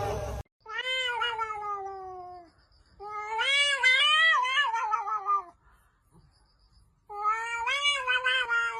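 A cat meowing in three long, drawn-out yowls, each wavering in pitch and sliding down at its end, with short pauses between them.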